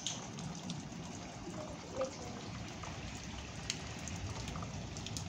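Steady rain falling, with scattered sharp ticks of individual drops hitting close by.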